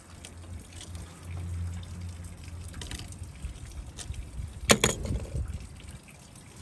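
Copper refrigerant line being deburred with a hand deburring tool, light scraping at the tube end, then a sharp clack a little past two-thirds through as the tool is put down on the condenser pad.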